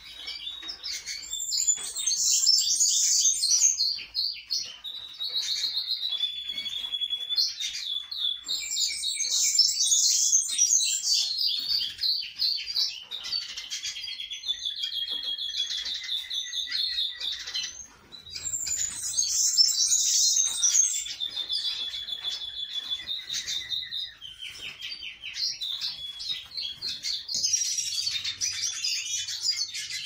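Caged songbird singing: long twittering phrases of several seconds each, with fast trills, broken by short pauses about every five or six seconds.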